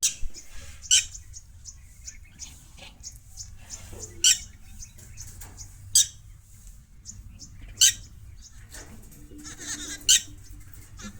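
Mynas calling in a squabble between birds: five loud, sharp, shrill calls about two seconds apart, with softer chirps in between.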